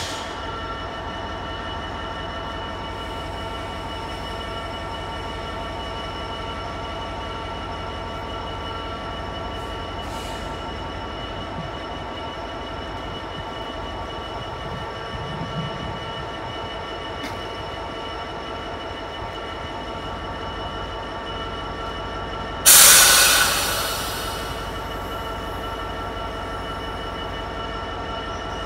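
Class 66 diesel locomotive's two-stroke V12 engine idling steadily, with fixed whining tones over a low rumble. About three-quarters of the way through comes a sudden loud hiss that dies away over a second or so.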